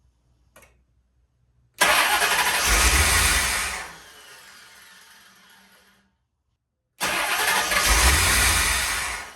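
C4 Corvette V8 being cranked by its starter twice, each attempt lasting about two seconds and fading away without the engine catching, with pretty terrible noises. It won't start because air is leaking past a loosely seated cold start injector.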